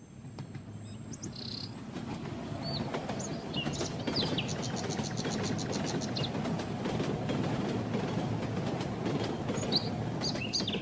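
Birds chirping and tweeting, short calls and a quick trill, over a steady rushing rumble that fades in over the first few seconds; the rumble fits a small cartoon steam locomotive running along the railway track.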